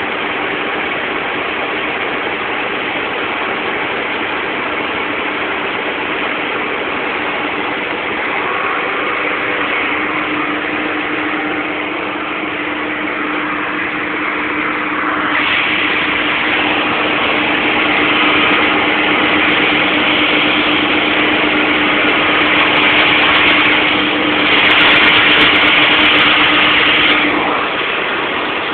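Renault 155-54 tractor running steadily while working a field with a power-harrow and maize-seeder combination. A harsher hiss grows louder about halfway through and drops back shortly before the end.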